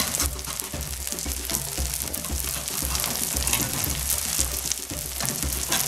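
Beaten eggs with diced peppers sizzling steadily in a hot non-stick frying pan, with a slotted spatula scraping and pushing in the omelette's edges.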